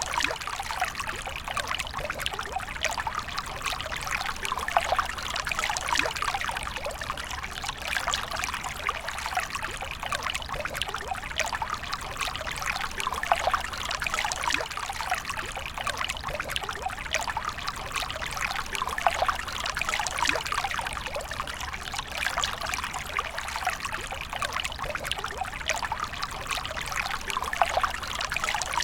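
Water flowing in a steady stream, a continuous trickling, splashing hiss that never pauses.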